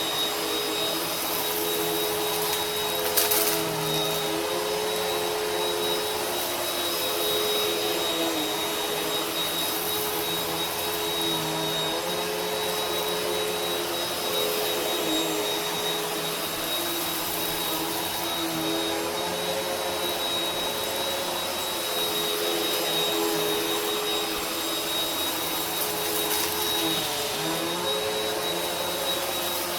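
Vacuum cleaner running steadily, its motor drone and high whine dipping slightly in pitch now and then. A short sharp click about three seconds in.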